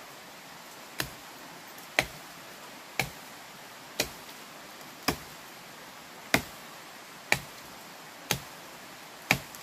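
Machete chopping into a thick woody vine: nine sharp strikes, about one a second.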